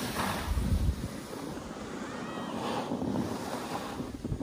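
Snowboard sliding fast over packed snow, a steady scraping hiss, with wind buffeting the phone's microphone, heaviest in the first second.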